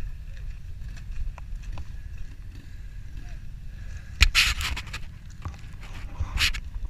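A quad engine runs faintly in the background under a steady low rumble. Two loud rustling scrapes come about four seconds in and again near the end.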